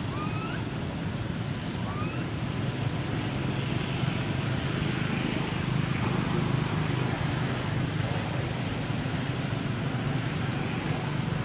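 Steady low rumbling background noise outdoors, with two short rising chirps in the first two seconds.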